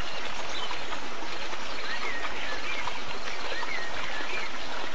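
A river or stream running, a steady rush of water, with a few short high chirps of small birds over it.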